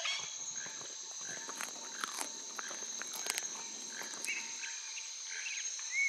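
Tropical rainforest ambience: a steady, high insect drone with scattered soft crunching and snapping clicks as a tapir browses among leaves, and a few short bird chirps.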